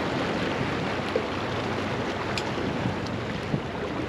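Steady wind noise on the microphone and water sloshing in the shallows, with a boat's outboard motor running at low speed as the boat moves slowly past.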